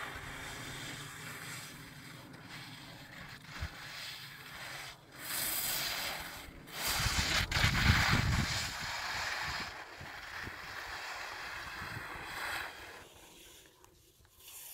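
Wind buffeting the microphone, a steady rushing hiss with a louder gusting rumble about seven to nine seconds in, easing off near the end.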